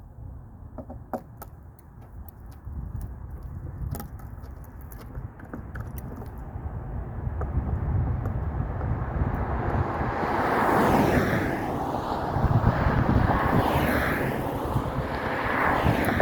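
A road vehicle approaching, its noise building steadily over about ten seconds into a loud rush that stays up near the end. A few sharp clicks and taps in the first few seconds.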